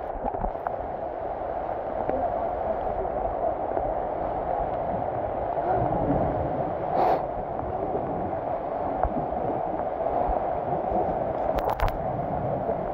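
Heavy rain falling steadily on rainforest foliage and a muddy trail, with a few sharp clicks near the end.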